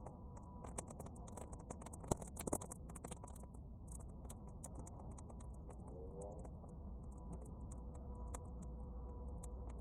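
Bonfire of half-dry weeds crackling, with many quick irregular pops and snaps, busiest in the first few seconds, over a steady low rumble of wind.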